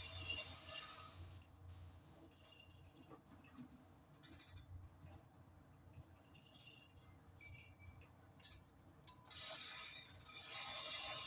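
Metal hand tools clicking and clinking during clutch work on a truck: a quick run of clicks about four seconds in and a few single clinks later. A steady hiss fills the start and returns near the end.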